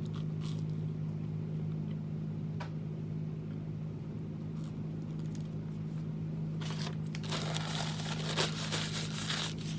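Toast being bitten and chewed with a few faint crunches, then a paper napkin crinkling loudly as it is rubbed over the mouth for about three seconds near the end, over a steady low hum.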